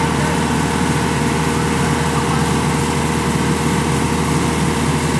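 Kubota DC-105X combine harvester's diesel engine running steadily, with a constant whine over the engine drone.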